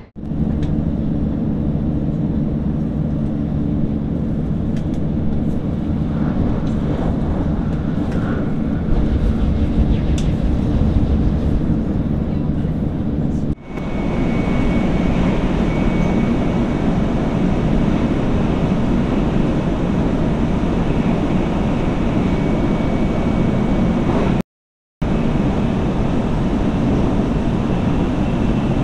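Steady running noise of a Mizuho shinkansen at speed, heard from inside the carriage: a constant rumble and rush with a low hum. The sound breaks briefly about halfway through and drops out for a moment near the end.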